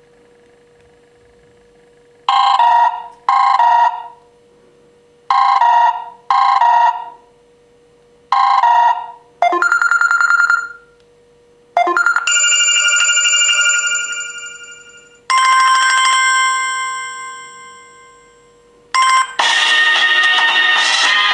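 Samsung Galaxy tablet stock ringtones playing one after another through the tablet's speaker. First comes a short two-part chime phrase, repeated a few times. Then several different tones each play briefly and cut off. Near the end a fuller musical ringtone starts and keeps going, all over a faint steady hum.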